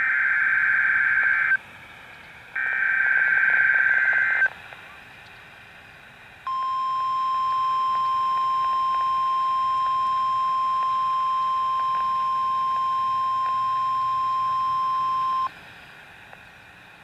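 NOAA Weather Radio sending a test alert. First come two bursts of the SAME digital header, a harsh warbling data screech about two seconds each. Then, after a short gap, the steady 1050 Hz warning alarm tone holds for about nine seconds and cuts off sharply.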